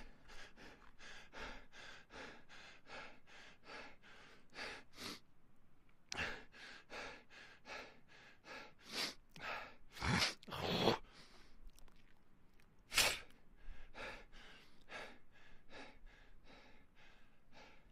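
A person panting hard from running, quick heavy breaths about two to three a second. There is a short break about five seconds in, and a few deeper, louder gasps around ten and thirteen seconds in.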